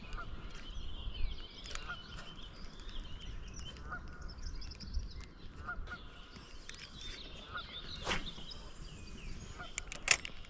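Birds calling: a short call repeating about every two seconds over steady higher chirping. Two sharp clicks come near the end, the second one the loudest sound.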